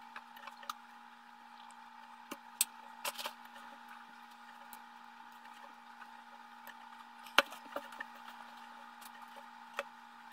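Hands rummaging in a plastic tub of mealworms and moving them into a small feeding dish on a wooden table: a few scattered light taps and clicks, the sharpest about seven seconds in, over a steady faint hum.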